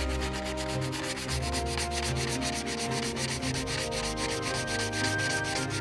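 Quick, even back-and-forth sanding strokes on a plastic model ship's hull, smoothing away the glued seam line.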